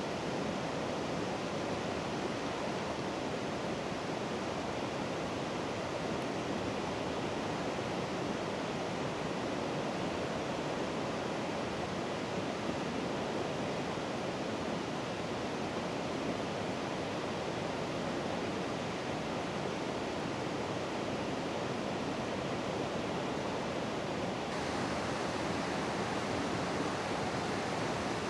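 Steady rushing of river water, with no distinct events. Near the end it changes abruptly and becomes brighter and hissier.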